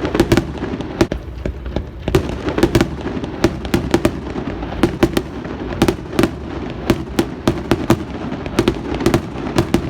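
Fireworks display: a rapid string of sharp bangs and crackling pops, several a second, over a continuous low rumble of bursts.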